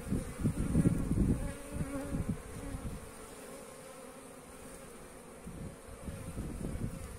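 Honeybees humming steadily at a wooden hive entrance during their spring cleansing flight after winter. A low rumbling noise hits the microphone in the first couple of seconds.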